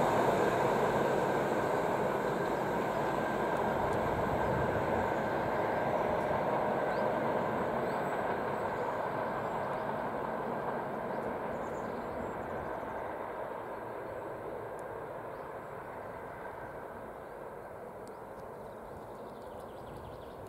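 Passenger train hauled by ST44-1228, a Soviet-built M62-type diesel locomotive, running away along the track, its rumble fading steadily as it recedes.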